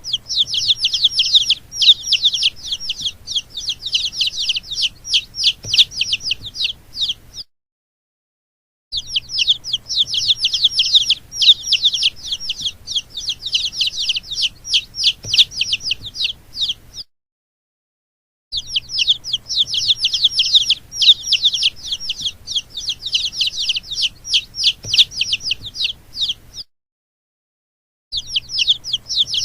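Baby chicks peeping: a rapid run of high, shrill, downward-falling chirps, several a second, in stretches of about eight seconds that cut off into short complete silences three times.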